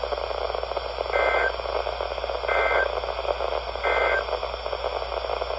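Three short bursts of EAS/SAME digital data tones, warbling between two high pitches about 1.4 s apart, over steady weather-radio static. Bursts this short are typical of the end-of-message code that closes an alert.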